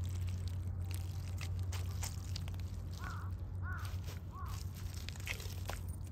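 Thick-soled sneakers stepping and pressing into soft mud, with scattered crunching, squelching steps over a steady low hum. About halfway through, three short faint calls sound one after another.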